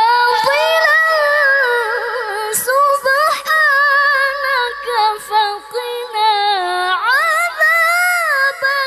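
A female qoriah's melodic Quran recitation (tilawah) through a microphone: long held, ornamented vocal phrases that turn up and down in pitch, with a slide upward about seven seconds in.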